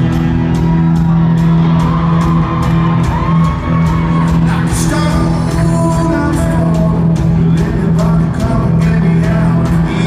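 Live rock band playing loud, with electric guitars, bass, a steady drum beat and a sung vocal line.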